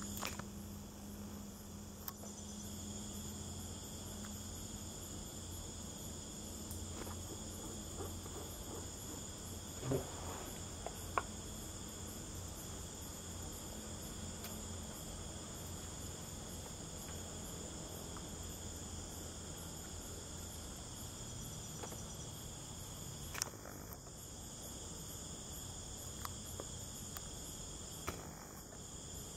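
A chorus of night insects shrilling steadily at several high pitches at once, over a low steady hum. A few short sharp knocks stand out, the loudest about ten seconds in and again near the middle.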